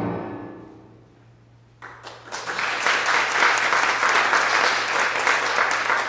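The last note of a song dies away. After a brief hush, a theatre audience breaks into applause about two seconds in, which then holds steady.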